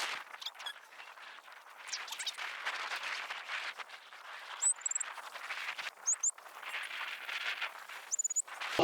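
Birds chirping outdoors: three short high chirps, about four and a half, six and eight seconds in, over a thin rustling with many small clicks.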